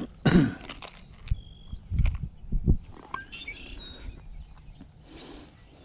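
Handling noise of a small clear plastic tackle box and lures in the hands: scattered knocks, clicks and rustles, loudest just after the start and about two to two and a half seconds in. A few faint, short, high chirps come through behind them.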